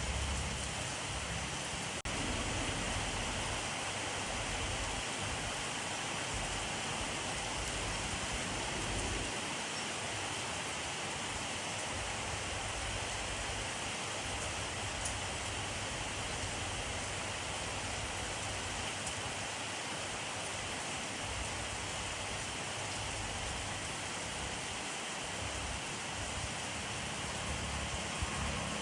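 Steady rainfall: an even hiss of rain falling on surfaces, with a low rumble that swells and fades underneath.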